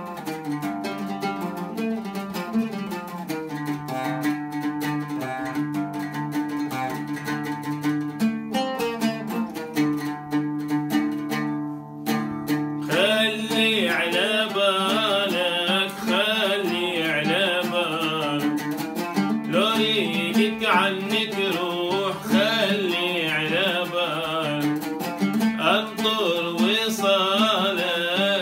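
Oud plucked solo, then about halfway through a man's voice joins in, singing an Iraqi folk song in long, ornamented, wavering lines over the oud.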